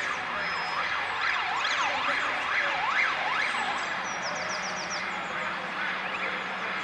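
Distant emergency-vehicle siren in yelp mode, its pitch sweeping up and down about twice a second and fading out about four seconds in, over steady town background noise.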